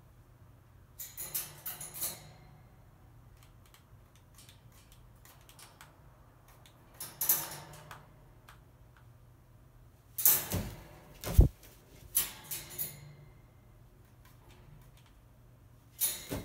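Crow moving about on a wire cage top: short bouts of clicking and rattling from its feet on the metal grid, the loudest cluster about ten to thirteen seconds in with one heavy thump, and a brief flurry of wingbeats near the end.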